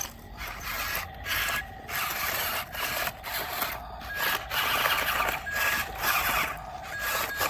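Small electric geared motor of an RC toy construction vehicle whirring in short stop-start bursts.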